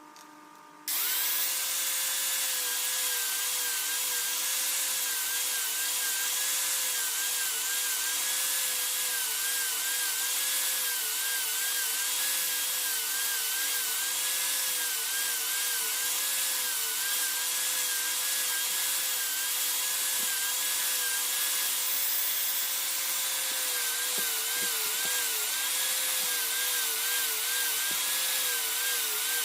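Electric power tool switched on about a second in and running steadily, its whine dipping in pitch again and again as it is pressed into the work, over a rough hiss.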